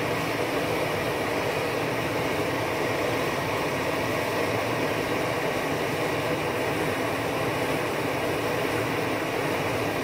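Steady rushing noise from an MSR XGK Expedition multi-fuel stove burning on full, its burner noise damped by a silencer cap, mixed with the hiss of rain.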